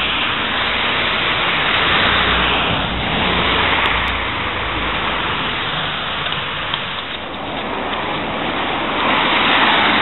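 Wind buffeting the microphone outdoors in a snowstorm: a loud, rushing noise with a low rumble that swells and eases in gusts.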